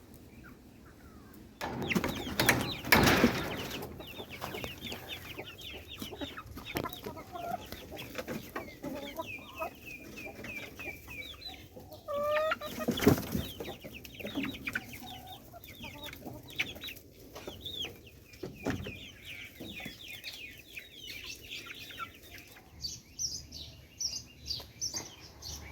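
A flock of backyard chickens clucking and calling, many short calls overlapping. There are loud bursts of noise about two seconds in and again about halfway through.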